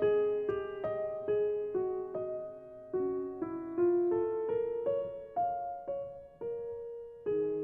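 Background piano music: a gentle melody of single notes, a new note about every half second.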